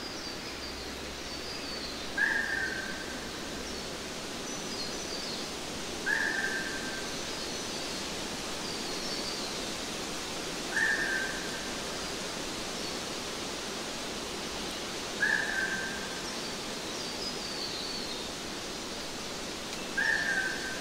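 Birdsong over a steady, even background hiss. One bird repeats a short call that falls slightly in pitch, five times about every four to five seconds, with fainter, higher twittering between the calls.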